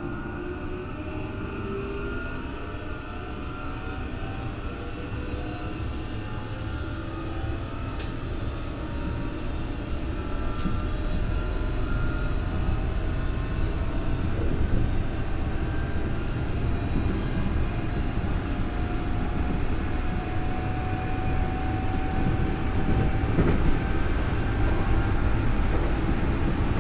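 Tokyo Metro 03 series electric train running, its armature-chopper-controlled traction motors and gears giving several whining tones that climb slowly as the train gains speed, over steady wheel and rail rumble. This car's whine is the jet-like 'jet sound' it is known for. The sound grows louder about ten seconds in.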